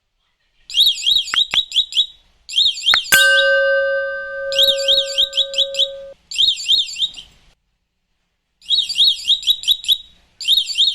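Electronic warbling siren of a homemade transistor theft-alarm circuit, sweeping rapidly up and down in pitch. It sounds in about five short bursts, switched on and off repeatedly, with sharp clicks. For about three seconds in the middle a steady lower tone sounds alongside it.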